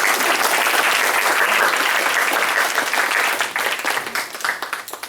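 Audience applauding: steady clapping that thins out and fades away over the last second or so.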